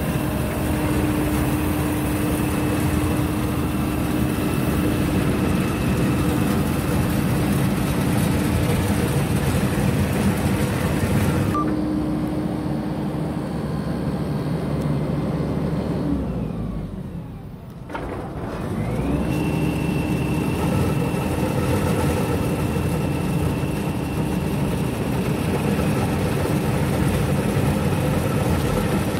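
Heavy road-construction machinery running steadily, a dense engine noise with a steady whine over it. A little past halfway the sound falls away for a couple of seconds, then winds back up to the same steady running.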